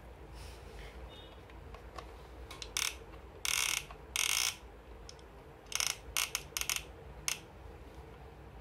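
Handling noises: a quick series of short scraping, rustling strokes, the two longest and loudest near the middle.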